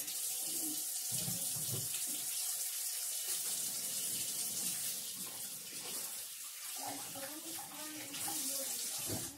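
Kitchen faucet running steadily while hands are washed under it; the water is shut off near the end.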